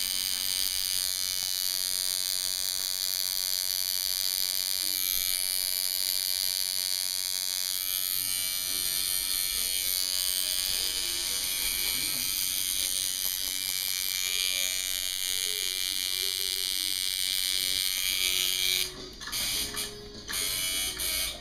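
Coil tattoo machine buzzing steadily while needling skin. About nineteen seconds in, the buzz breaks off and comes back in short spurts.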